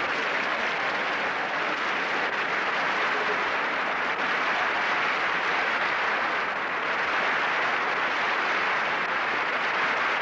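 Live audience applauding steadily for about ten seconds.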